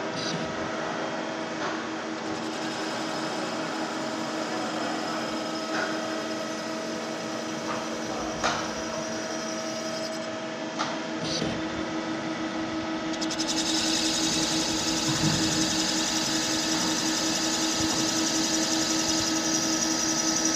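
Valve seat machining machine running steadily as its cutter machines the valve seats in a Skoda locomotive engine's cylinder head. There are a few light clicks near the middle, and about two-thirds of the way in it turns louder with a brighter hiss.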